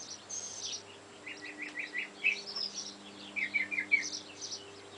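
Birds chirping: one repeats a quick run of four or five short notes twice, with other higher chirps scattered around it. A faint steady hum lies underneath.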